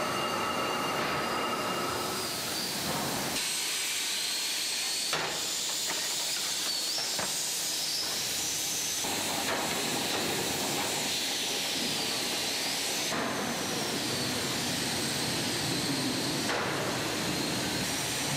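Steady hissing machinery noise of an aluminium plant's ingot-handling floor, with faint wavering high squeals in the middle. The noise changes abruptly several times.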